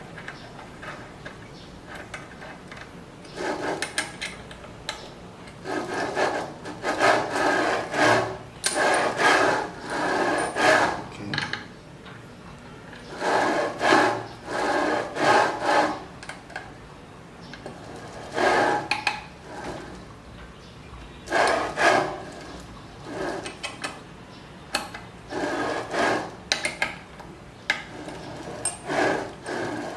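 Repeated rasping, scraping strokes, like metal being filed or rubbed by hand. They come in about eight separate bouts of one to three seconds each, with quiet gaps between.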